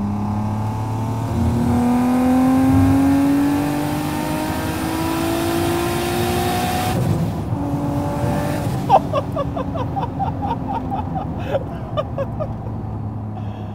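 Single-turbo Acura NSX V6, heard from inside the cabin, on a wide-open-throttle pull in third gear. The engine note rises steadily for about five seconds under a loud rush of turbo and intake noise. About seven seconds in, the rush cuts off suddenly and the engine drops back to a lower, steadier note.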